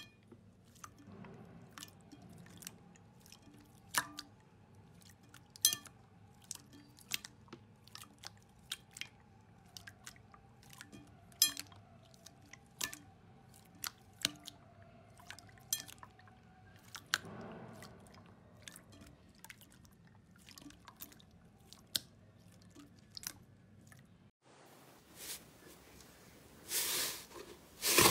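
Glossy slime being kneaded and squeezed by hand, giving short sticky clicks and pops every second or so. Near the end a thicker, fluffy slime is pressed with the palms, giving louder, longer squishes.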